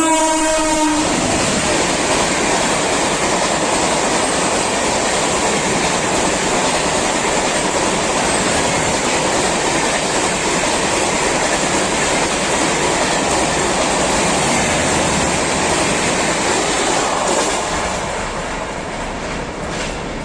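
The horn of an Indian Railways WAP-7 electric locomotive cuts off about a second in. Then a loud, steady rush of wheels on rail as the train of LHB coaches passes, easing off near the end.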